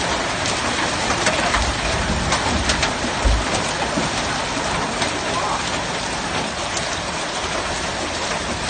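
Hailstorm: hailstones pelting down in a dense, steady hiss with many scattered sharp clicks from individual stones striking. There is a brief low rumble about two to three seconds in.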